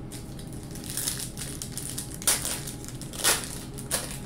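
A wrapper of a 1998 Score football card pack being torn open and crinkled by hand, in several short crackling bursts, the loudest about two and three seconds in.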